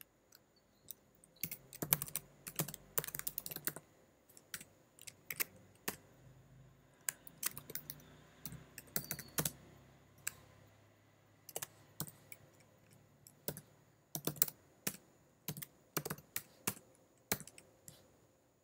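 Typing on a computer keyboard: irregular runs of keystrokes with short pauses between them, as a line of code is entered.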